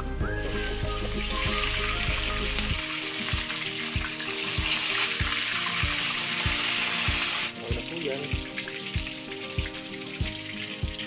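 Breaded pork chop frying in hot oil in a stainless steel wok, a loud steady sizzle that drops away about seven and a half seconds in.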